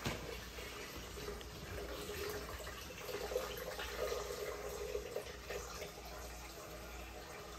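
Liquid trickling and dripping softly as a large brush is worked in and lifted out of a jar of darkroom chemical. The trickle is strongest in the middle and thins out near the end.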